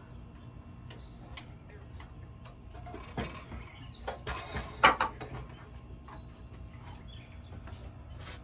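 Knocks and rattles of a sliding miter saw being handled and adjusted during assembly, in a short cluster about three to five seconds in, the loudest near five seconds. Birds chirp faintly in the background.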